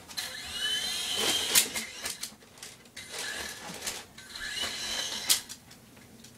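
Small electric motors of a toy remote-control helicopter whining up and down in two short spells, each ending in a sharp knock.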